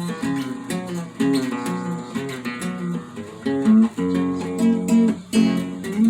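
Acoustic guitar strummed in a steady rhythm, moving through a chord progression.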